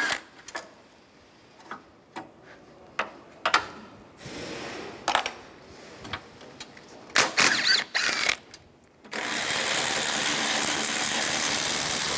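Metal clinks and knocks from a socket and extension being handled and set on a bolt. About nine seconds in, a power tool runs steadily for about four seconds, driving a 13 mm bolt out of the radiator support bracket.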